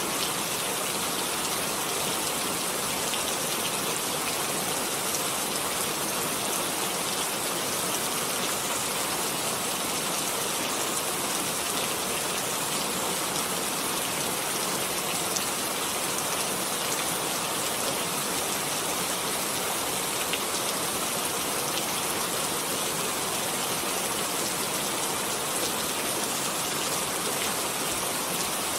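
Steady rain falling, a dense even hiss with scattered drop ticks.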